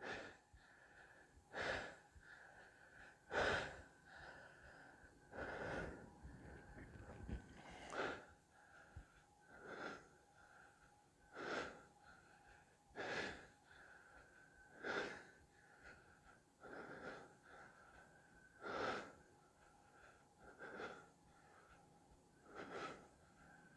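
A man's faint, heavy breathing: short forceful breaths about every two seconds from the strain of holding a side plank.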